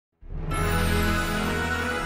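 Background music with a strong bass line, starting about a quarter of a second in.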